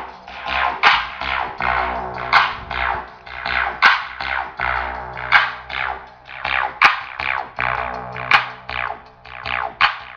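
Electronic dance music played through a car sound system with horn drivers and 15-inch speakers. Falling, scratch-like synth sweeps repeat about every half-second over a bass line.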